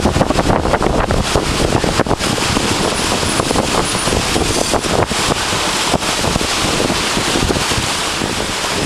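Wind buffeting the microphone in irregular gusts aboard a catamaran under way, over the rush of the sea.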